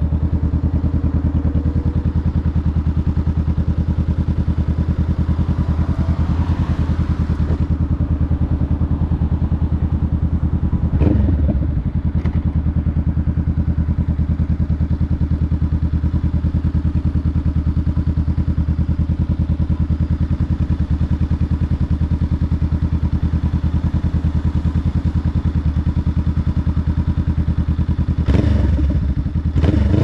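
Honda Rebel 500's parallel-twin engine idling steadily through a Two Bros aftermarket exhaust. The revs rise and fall briefly about eleven seconds in, and again near the end.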